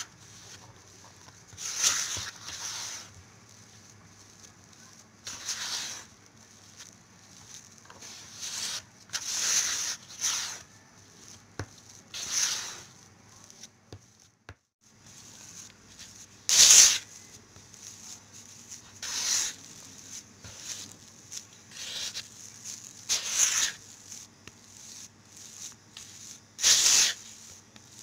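Silicone spatula scraping and pressing through crumbly green tea cookie dough against the side of a mixing bowl, as flour is folded into the butter dough. It comes in uneven strokes every two seconds or so, some louder than others.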